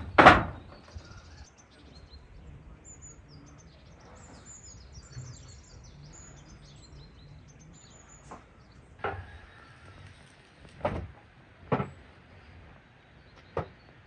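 A loud, sharp knock just after the start as a brick is set down on the metal lid of a brick pit oven. Songbirds chirp over the next few seconds, and several duller knocks follow in the second half.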